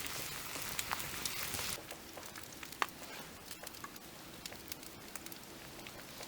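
Frying pan sizzling over a campfire, a dense hiss with sharp crackles that stops abruptly about two seconds in, leaving quieter scattered crackles and pops.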